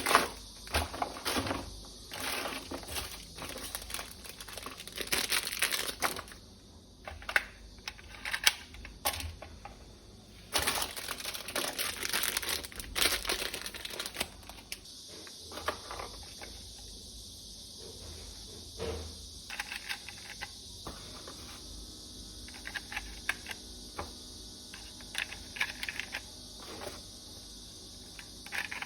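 Plastic packaging crinkling and rustling as it is handled, mixed with irregular light clicks and knocks of plastic toy parts.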